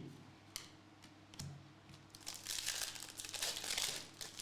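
Foil trading-card pack wrapper crinkling and tearing open, with a couple of light clicks in the first second and a half.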